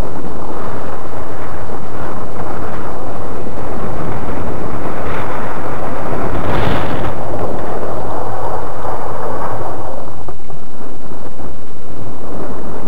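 2004 Cadillac CTS doing donuts on snow, heard through a camera mounted on the car's body: a loud, overloaded rumble of engine, tyres and wind buffeting the microphone, swelling briefly about six and a half seconds in.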